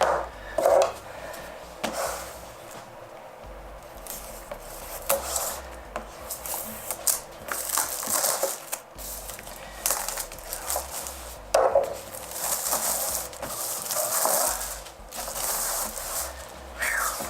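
A box and its packaging being opened and handled: rustling, scraping and tearing in irregular spells, with scattered sharp clicks and knocks.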